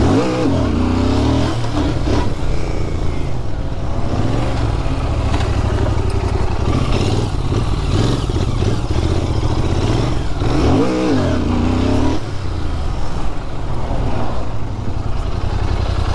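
Royal Enfield Continental GT 650's parallel-twin engine and exhaust running as the bike rides along, heard from the rider's seat with wind rush. The engine note swings up and down about a second in and again around eleven seconds.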